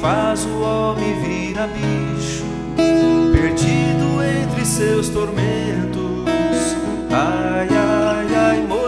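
Viola caipira, the Brazilian ten-string folk guitar, plucked, playing a melody of held notes with a few sliding notes, part of the song's instrumental passage.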